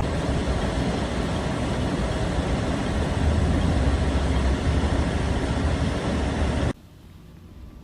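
Steady rumble of a vehicle driving, with engine and road noise, that cuts off abruptly near the end.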